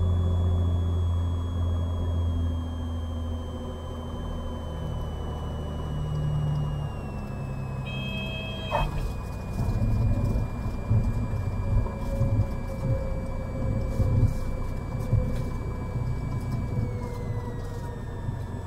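Cessna 182's engine and propeller at idle through the flare and landing, a high whine falling slowly in pitch as the airplane slows. About eight to nine seconds in, a short high tone and a sharp chirp mark the touchdown. An uneven rumble of the tires rolling on the runway follows.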